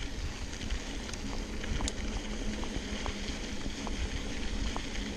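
2014 Giant Trance Advanced SX mountain bike rolling along a dirt trail: a steady rush of tyre noise with scattered small clicks and rattles from the trail surface and the bike.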